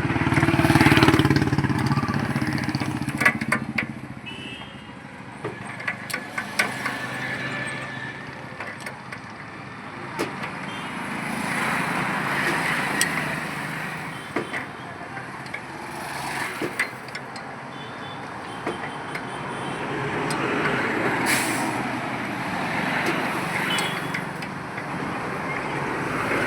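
Motor vehicles passing on a road, the noise swelling and fading several times, with scattered sharp clicks and knocks.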